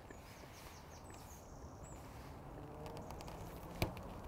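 Faint outdoor ambience with a few faint, high bird chirps in the first half and a low hum building in the second half. A single sharp click sounds just before the end.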